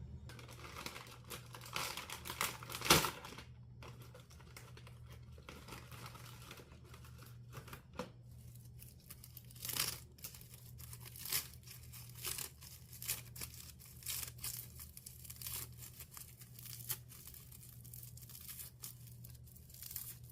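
Crinkling and rustling with many scattered sharp clicks, over a steady low hum. The loudest click comes about three seconds in.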